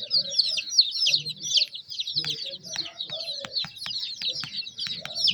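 A brood of baby chicks peeping together: many short, high-pitched chirps overlapping without a break, with a few brief clicks in the middle.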